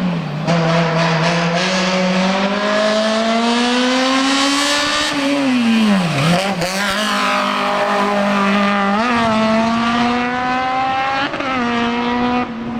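Race car engine running hard at high revs. The pitch climbs slowly, drops sharply and climbs back about six seconds in, then holds fairly steady with small rises and falls.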